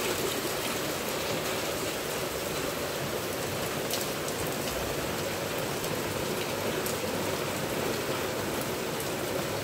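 Heavy rain falling steadily, an even hiss with no let-up, with runoff water pouring off a roof edge.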